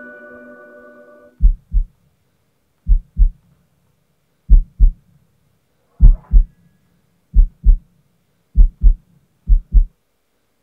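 Heartbeat sound effect: seven deep lub-dub double thumps that come faster toward the end. Before them a held music chord fades out about a second and a half in.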